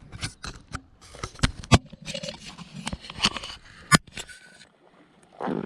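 Handling noise from a chest-mounted camera being clipped into its harness: scattered sharp clicks and knocks with clothing rustling right at the microphone, dying away about four and a half seconds in.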